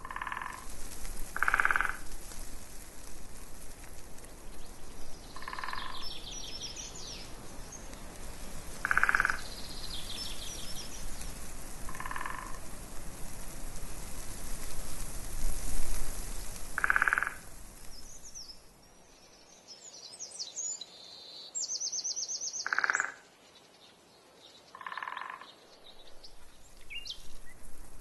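Frogs croaking: about eight short, pulsed croaks at irregular intervals, with small birds singing high trills between them. Wind buffets the microphone through the first two-thirds, then dies down.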